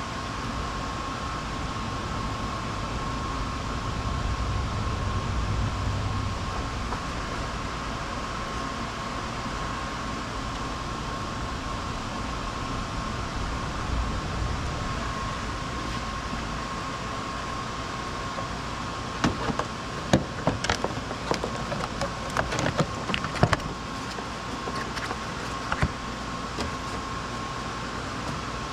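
Steady mechanical hum with a thin steady whine, and a run of sharp clicks and knocks starting about two-thirds of the way in and lasting a few seconds.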